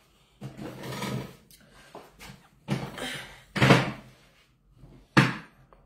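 A few bumps and rustles of someone moving and sitting down right by the microphone: a longer scuffing rustle near the start, then short knocks, the loudest about two-thirds of the way through and another sharp one near the end.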